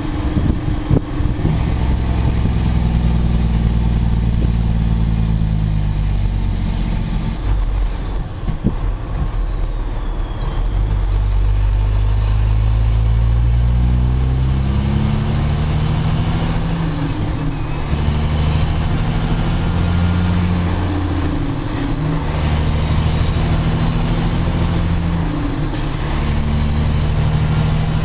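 Diesel engine of a loaded Kenworth logging truck under way. The engine note dips around eight to eleven seconds in, then climbs in steps and changes pitch several times as the truck works through the gears.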